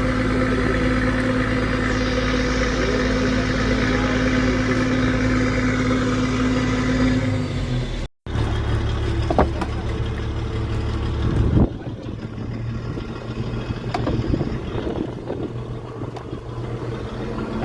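Mechanized fishing boat's engine running steadily. About eight seconds in the sound cuts out for a moment and comes back with a different engine note, which drops away and turns noisier a few seconds later.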